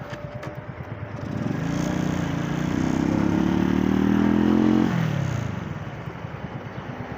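Motorcycle engine revving up under acceleration from about a second in, pulling loud and high for a few seconds, then dropping back in pitch near the five-second mark as the throttle is eased.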